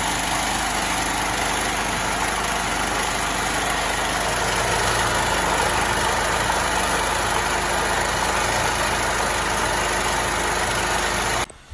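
Elepaq Constant petrol generator engine running steadily at a constant speed, stopping abruptly near the end.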